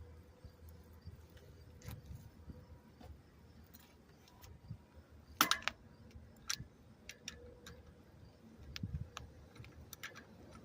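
Scattered light metallic clicks and clinks of hand tools and bicycle parts being handled during a repair, one brief cluster about halfway through the loudest.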